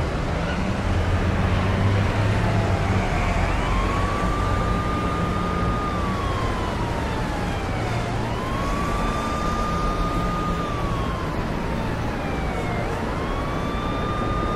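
An emergency-vehicle siren wailing over steady street and traffic noise. Three times it rises quickly to a high note, holds it for about two seconds, then slides slowly back down, about every four to five seconds.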